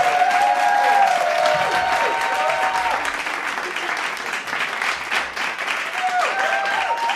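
Crowd applauding and cheering, with raised voices and whoops over dense clapping; the clapping eases after the first few seconds and the voices rise again near the end.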